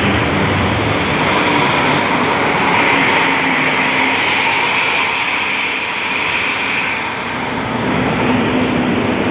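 Intercity bus's diesel engine and loud aftermarket exhaust running in traffic, under a steady rush of wind and road noise. The engine note eases off about seven seconds in and then picks up again.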